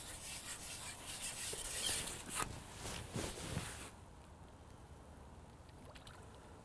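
Rustling noise with a few light knocks, dropping suddenly to a faint outdoor hush about four seconds in.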